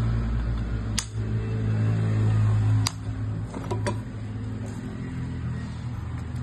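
Three sharp metal clicks, about one, three and four seconds in, as a motorcycle cylinder head is handled and its fitted parts knock, over a steady low mechanical hum.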